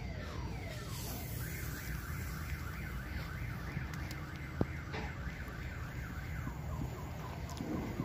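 Electronic vehicle alarm siren cycling through its tones: repeated falling sweeps die away, then a fast warbling chirp runs for several seconds before stopping near the end. A steady low rumble lies underneath, and a single sharp knock comes about four and a half seconds in.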